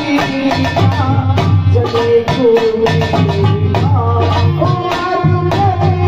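Live Indian folk-devotional band music: a keyboard melody with tabla strokes over a deep, steady beat.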